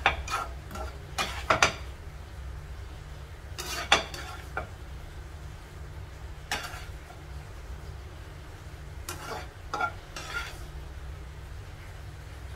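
A spatula stirs and tosses shredded cabbage and carrot in a glass pan, in separate scraping strokes every second or two, the loudest about four seconds in. A steady low hum runs underneath.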